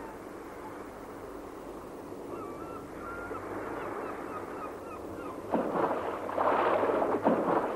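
Northern gannets feeding at sea: a few calls over the water, then from about five and a half seconds in a loud, harsh din of calling birds and splashing as they plunge-dive into a shoal of fish.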